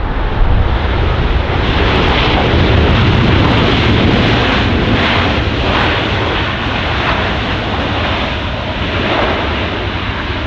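Jet airliner passing close: a loud, steady engine roar with a deep rumble, building in the first couple of seconds and then easing only slightly.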